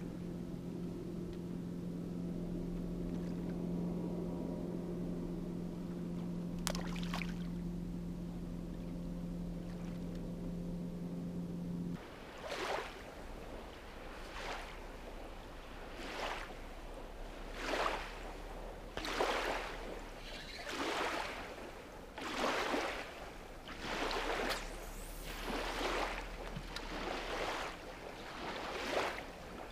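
A motorboat engine hums steadily, then cuts off abruptly about twelve seconds in. After that, small wake waves wash onto the sandy bank, one swish about every second and a half.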